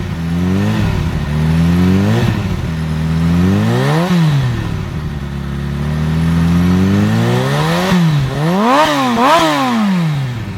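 Kawasaki Ninja H2 SX's supercharged inline-four revving through a VANDEMON slip-on silencer. The revs rise and fall repeatedly: short blips, a slower climb in the middle, then two quick blips near the end.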